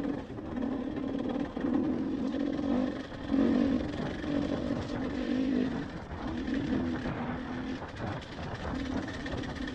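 Two-stroke enduro dirt bike engine, a KTM 300, pulling up a steep rocky trail under load, its note rising and falling in spurts of about a second as the throttle is worked on and off.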